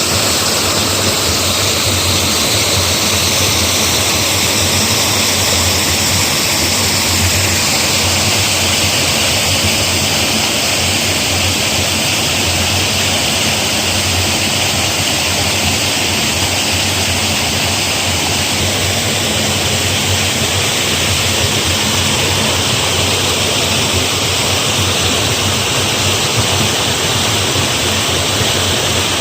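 Rushing canal water: a loud, steady wash of flowing water that does not let up.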